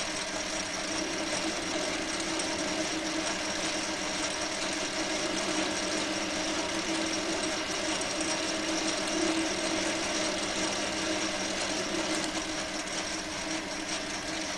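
Small Chinese metal lathe running steadily under cut, a carbide TCMT insert turning a small steel spigot; motor and gear drive give an even mechanical whine with several held tones and no breaks.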